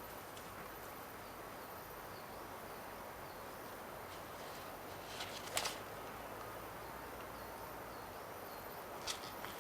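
Quiet forest ambience with faint, repeated small bird chirps over a steady hiss. There is a single sharp click or snap a little past halfway, and a few lighter ticks near the end.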